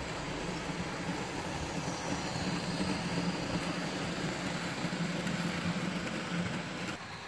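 Fleischmann H0 scale model train passing: the locomotive's electric motor hums and the wheels rattle over the track and points. The sound grows louder as the train goes by and falls away near the end.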